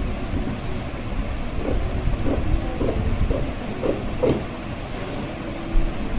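Scissors snipping through fabric, a short cut about every half second through the middle stretch, over a steady low background rumble.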